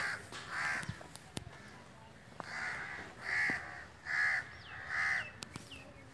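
A crow cawing: two caws, then a run of four harsh caws under a second apart, with a few sharp clicks and a brief high thin whistle from another bird near the end.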